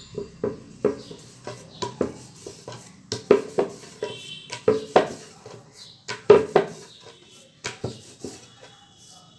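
Wooden rolling pin rolling back and forth and knocking on a wooden board as puri dough is rolled out: a run of quick, irregular wooden knocks, about three a second.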